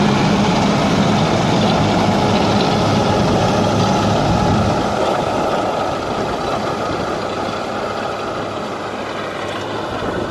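A vehicle engine running steadily, stronger in the first few seconds and then easing off a little.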